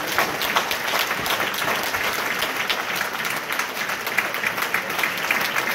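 Congregation applauding, many hands clapping at once without letup.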